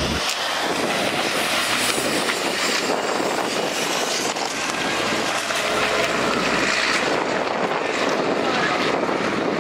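Diesel engines of buses running steadily as the buses drive past and around the track, a dense, even noise.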